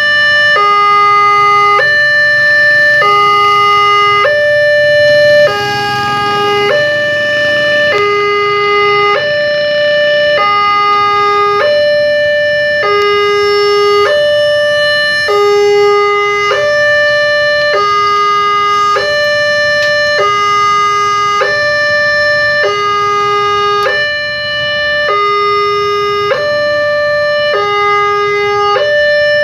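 Indonesian railway level-crossing warning alarm: a loud electronic two-tone signal alternating evenly between a higher and a lower note about every three-quarters of a second, sounding as the boom barriers close to warn of an approaching train.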